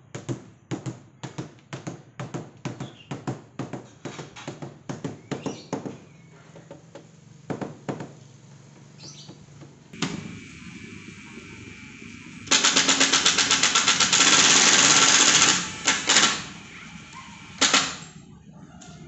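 A quick series of sharp taps for about six seconds. Then a power tool starts quietly around ten seconds in and runs loud with a fast rattling pulse for about three and a half seconds, with one more short burst near the end.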